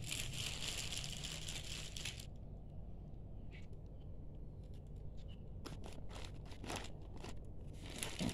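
Plastic film wrapping on packs of toilet paper rolls crinkling as a hand handles it: a continuous rustle for about the first two seconds, then a scatter of short crackles later on.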